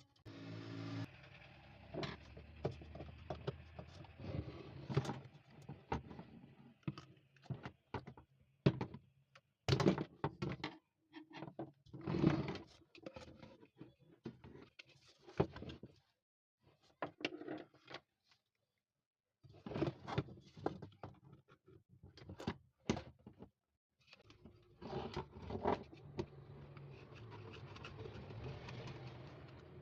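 Scattered clicks, taps and knocks of small parts and tools being handled, with a low steady hum about the first two seconds and again toward the end.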